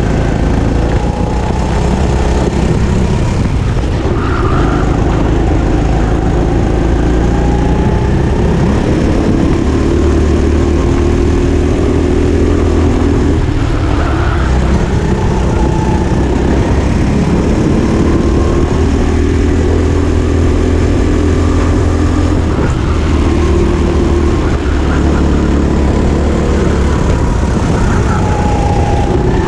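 Go-kart's small engine heard from on board, running hard, its pitch climbing on the straights and dropping into the corners again and again.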